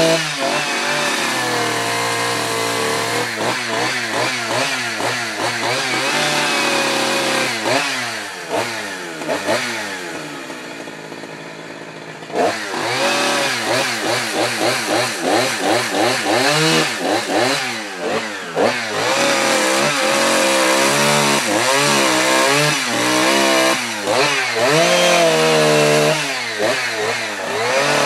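Gas chainsaw carving wood, its engine revving up and down again and again as it cuts. It eases off to a lower, quieter run for a few seconds around the middle, then snaps back to full revs about twelve seconds in.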